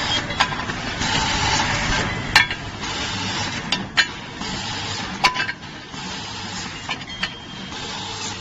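Automatic packing machine with vibratory bowl feeders running: a steady hiss over a low hum that swells and drops every second or two, with a scatter of sharp metallic clinks as parts and steel fittings knock together.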